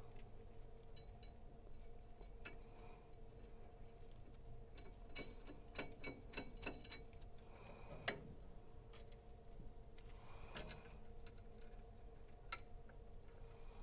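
Faint, scattered metallic clicks and taps of a metal bracket and its screws being handled and fitted by hand, with the loudest click about eight seconds in, over a low steady hum.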